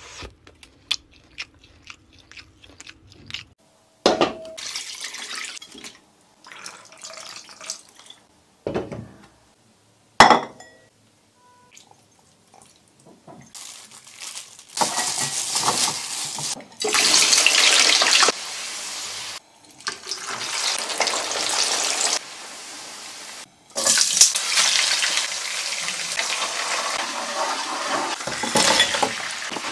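A run of separate kitchen sounds with hard cuts between them: scattered short clicks and knocks, then long stretches of steady hissing. Near the end, dried chillies and aromatics sizzle in hot oil in a wok as they are stirred.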